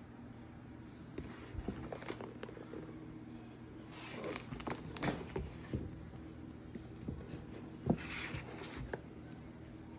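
Handling noise from sneakers being picked up and set down on a wooden table: scattered knocks, taps and short rustles of packing paper, the sharpest knock about eight seconds in, over a steady low hum.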